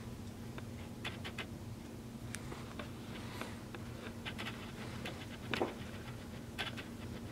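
Faint, scattered scratching and clicking of small movements on a fleece blanket in a wire crate as kittens shift and a hand strokes them, over a low steady hum; the sharpest click comes a little past halfway.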